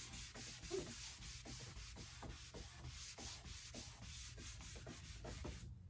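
Gloved hand wiping whitewash across a stripped wooden tabletop, a soft rubbing in quick back-and-forth strokes at about three a second.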